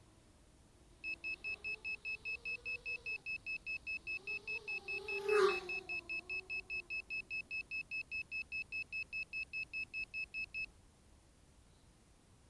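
A crashed FPV racing quadcopter's electronic buzzer beeping rapidly and evenly, about four to five high beeps a second, starting about a second in and stopping near the end: the lost-model alarm that sounds when a downed quad is left disarmed. A short burst of noise about halfway through is briefly louder than the beeps.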